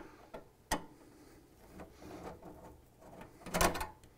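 Phillips screwdriver backing out a housing screw from the stainless steel top of a Quick Mill Pathfinder espresso machine: faint scraping and light metal clicks, with a sharp click under a second in and a louder clatter of clicks near the end.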